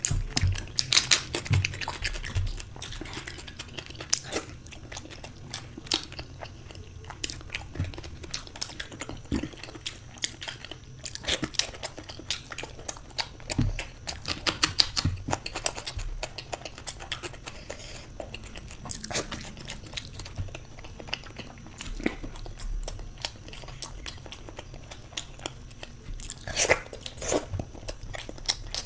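A person eating spicy eggs close to the microphone: steady chewing and biting with many short clicks, louder near the start, around the middle and near the end.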